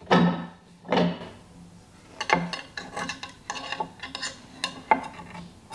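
Metal clinks and knocks as a cast-iron sandwich iron is handled, its parts and handles knocking together. There is a string of short, sharp knocks from about two seconds in.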